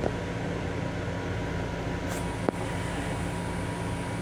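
Steady hum and rumble inside the restroom of a Long Island Rail Road M7 electric railcar, with a faint steady tone above it. A single sharp click comes about two and a half seconds in.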